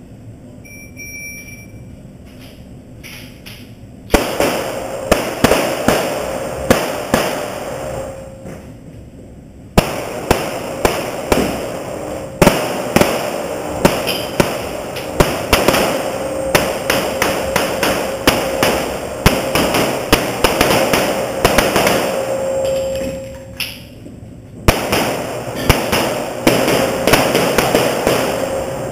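Rapid 9mm pistol shots fired in quick strings, echoing in a concrete indoor range, starting about four seconds in and coming several a second, so many that they overlap. There is a short lull near the end before the shooting resumes.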